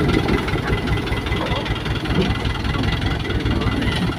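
Dump truck's diesel engine running steadily at a low, even rumble.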